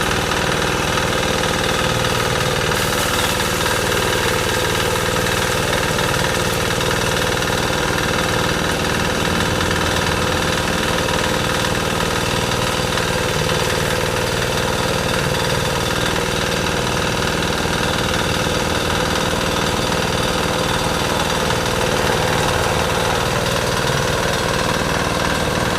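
Engine of a water pump running steadily, pumping water out of a canal.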